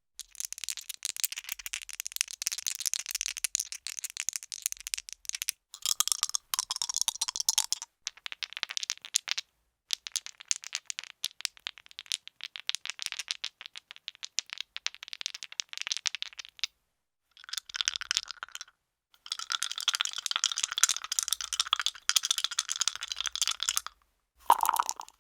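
Dice rattling and clattering in a run of separate takes: rapid dense clicking that stops and starts again after short gaps.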